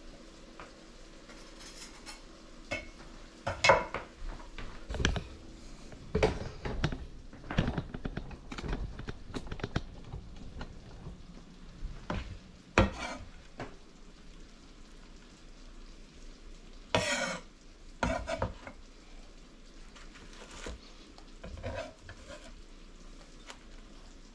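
A kitchen knife chopping cooked steak on a wooden cutting board: irregular sharp knocks of the blade on the board, with a run of quick chops a few seconds in, and a few scrapes as the chopped meat is gathered up.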